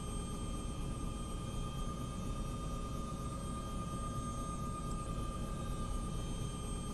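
Aircraft engine noise heard from on board: a steady low rumble with a constant high whine.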